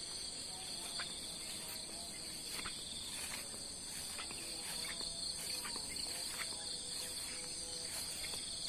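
Steady chorus of insects, a constant high-pitched shrill at two pitches, with faint light clicks of footsteps through grass.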